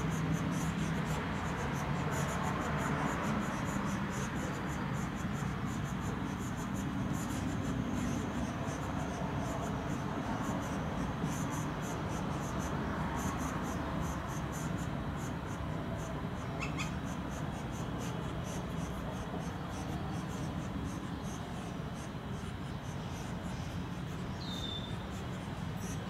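Northern flicker nestlings begging at the nest hole as they are fed: a rapid, high, scratchy ticking that swells and fades, over a steady low rumble. A brief chirp comes about two-thirds through and a short falling whistle near the end.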